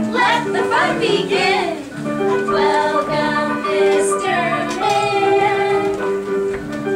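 Upright piano playing a dance tune in steady held notes, with women's voices singing over the first couple of seconds.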